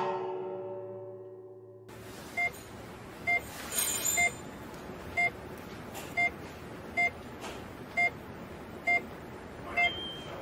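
Hospital heart monitor sound effect beeping steadily, nine short beeps just under a second apart over a low hiss. This follows the last chord of the music dying away in the first two seconds.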